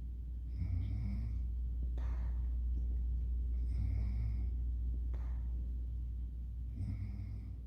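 A person snoring in sleep: three slow breaths about three seconds apart, each a snore carrying a thin whistling tone, followed by a short breathy puff. A steady low hum runs underneath.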